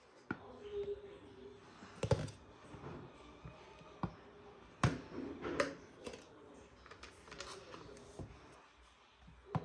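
Plastic parts of a manual baby food maker set being handled, with scattered sharp clicks and light knocks as pieces touch and are set down.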